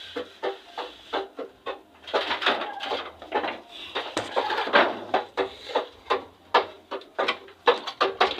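A rapid, uneven series of sharp clicks and knocks, busiest for a moment about two seconds in.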